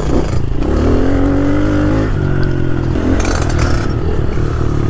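Small dirt bike engine running under throttle on a dirt track, its pitch climbing about half a second in and then holding steady.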